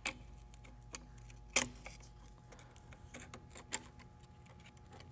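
Long flat screwdriver prying the wire retaining ring and plastic retainer off a charge tube's metal coupler: a handful of scattered metallic clicks and clinks, the loudest about one and a half seconds in with a short ring after it.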